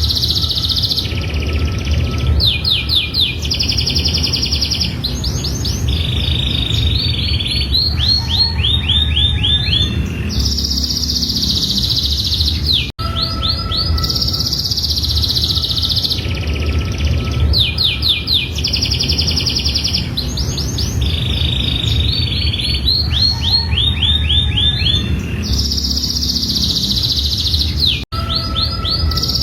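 Domestic canary singing a long unbroken song of rapid trills and held phrases over a steady low background rumble. The song cuts out for a moment twice, about halfway through and near the end, and the same stretch of song repeats.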